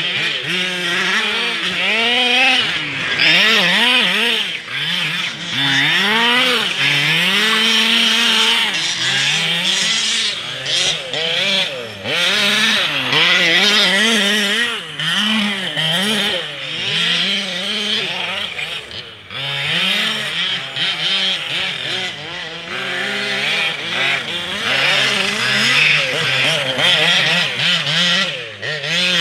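Small two-stroke petrol engine of a 1/5-scale RC car, revving up and falling back over and over as it is driven round a dirt track, with a short lull about two-thirds of the way through.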